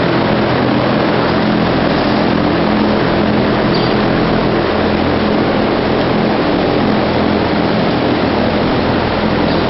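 Steady mechanical drone: an even rushing noise with a constant low hum underneath, unchanging throughout.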